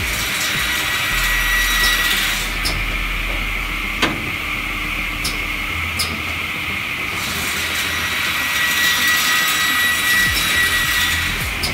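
SEMAC SM-24 large-format cross-cut panel saw running, its blade cutting across a wooden panel with a steady high-pitched whine. A few sharp clicks come about 4 and 6 seconds in.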